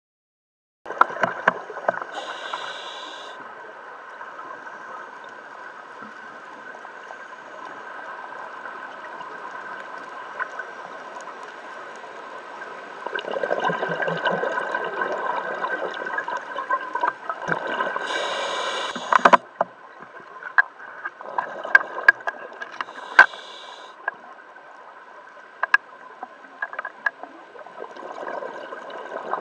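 Underwater sound of a scuba dive through a camera housing, starting about a second in: a diver's regulator hissing briefly on inhalations and exhaled bubbles gurgling, the loudest stretch of bubbles a little before the middle. Scattered sharp clicks and a faint steady hum run underneath.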